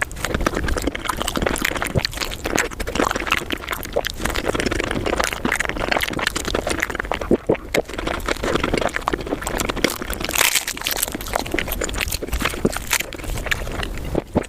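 Close-miked eating sounds sped up five times: chewing, smacking and mouth sounds run together into a dense, fast stream of clicks.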